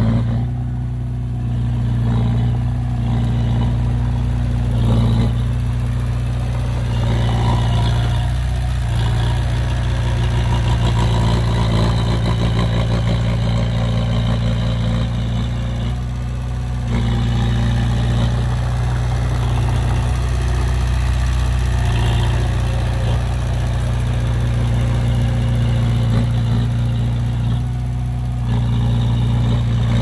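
Heavy diesel engine of earthmoving machinery running steadily, with a low drone and a clattering rattle.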